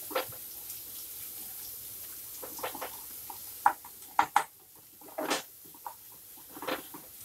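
Wooden spatula stirring and scraping chopped onions, tomatoes and green chillies around a non-stick kadhai, in irregular scrapes with a few sharp taps against the pan a little past the middle.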